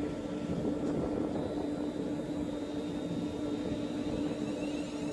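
Electric multiple unit standing at a platform, its onboard equipment giving a steady hum with a held low tone and a faint high whine that joins about a second and a half in.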